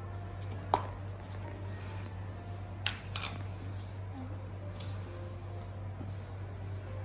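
Plastic slime tubs and lids handled on a hard tabletop: a sharp click about a second in, then two knocks close together near the middle, as a lid comes off and the tubs are set down. A steady low hum runs underneath.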